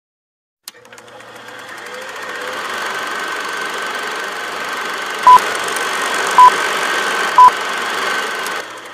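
Film projector sound effect: the projector starts with a click and runs with a steady mechanical whirr that fades in. Three short high countdown beeps come about a second apart and are the loudest sounds.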